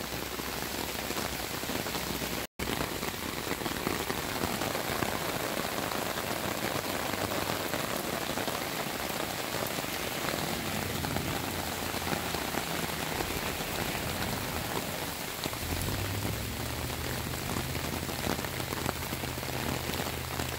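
Heavy rain pouring down on saturated ground and flowing runoff water, a steady, even hiss. The sound drops out for an instant about two and a half seconds in. A low steady hum joins in for the last five seconds.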